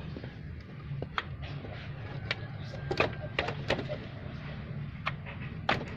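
Irregular metal clicks and taps from hand tools working on the engine while the old camshaft oil seal is pried out, over a steady low hum.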